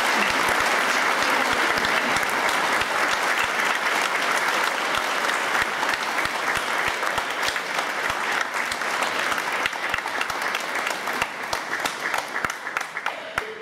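Audience applauding: a dense round of clapping that thins out into scattered individual claps and dies away near the end.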